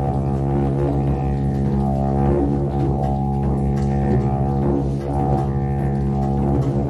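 Wooden didgeridoo playing a steady low drone with a stack of overtones, the overtones shifting now and then.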